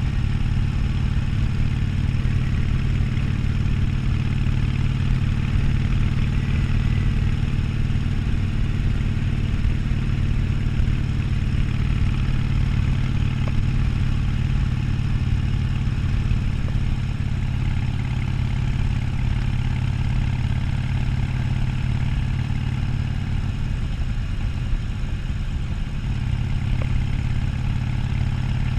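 Harley-Davidson Sportster 1200's air-cooled V-twin running at a steady cruising speed under way. About three quarters of the way through, the engine note briefly wavers and dips, then settles back to the same steady pitch.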